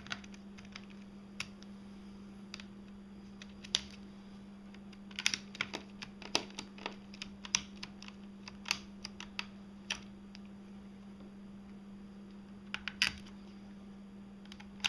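Irregular small clicks and taps of a screwdriver and small screws against the plastic case of an Acer Aspire One D257 netbook during reassembly, some in quick clusters, over a steady low hum.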